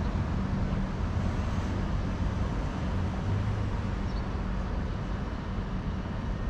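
Steady rumble of trams and road traffic, with a low hum underneath.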